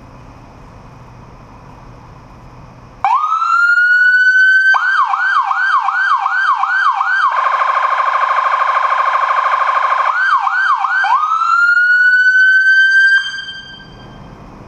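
Electronic police car siren cycling through its tones: it comes on about three seconds in with a rising wail, switches to a fast yelp of about three sweeps a second, then a harsher, buzzy rapid warble, back to yelp and a rising wail, and cuts off suddenly about thirteen seconds in.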